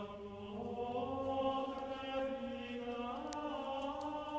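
Slow sung chant: long held vocal notes that glide gradually from one pitch to the next.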